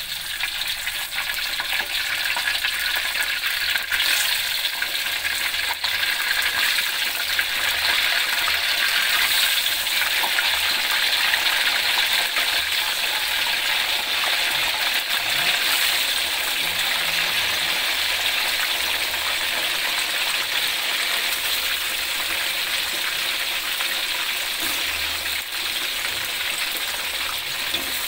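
Chicken pieces deep-frying in hot oil in a steel wok: a loud, steady sizzle and crackle that builds over the first few seconds as more pieces go into the oil, with a few sharp pops.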